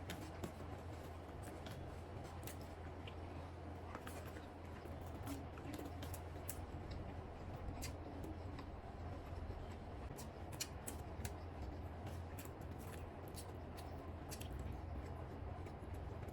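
Close-up eating sounds: chewing of chicken biryani with egg, with irregular sharp mouth clicks and smacks, over a steady low hum.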